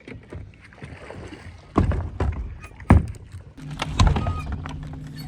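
Sounds of a bass boat on the water: three heavy thumps on the boat about a second apart. From about two-thirds of the way in, a steady low motor hum joins them.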